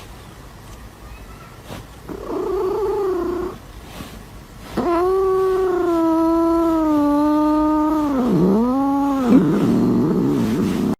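Domestic cat yowling: a drawn-out yowl about two seconds in, then a longer one of about four seconds that wavers and dips in pitch near its end, trailing into a rougher, lower sound.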